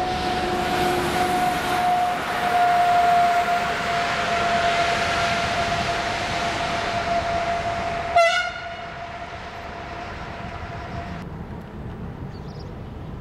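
Train running through the station, with a steady high-pitched tone held over the rolling noise for about eleven seconds. A sharp metallic click comes about eight seconds in, after which the rolling noise drops away.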